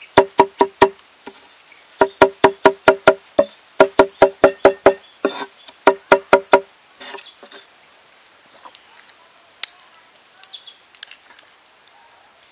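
Cleaver chopping garlic and red onion on a cutting board: quick runs of chops, about five a second, each knock ringing with the board's hollow tone. The chopping stops about seven seconds in, leaving faint clinks and a few short high bird chirps.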